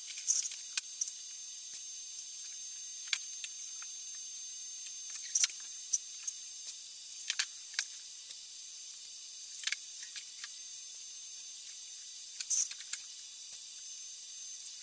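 Welding arc tacking a cross brace into the steel-tube fuselage frame: a steady high hiss with scattered sharp crackles, starting and stopping abruptly.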